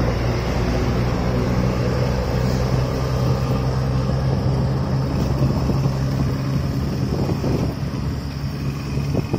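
A road vehicle's engine running steadily at low speed close to the microphone, with a constant low drone and road noise.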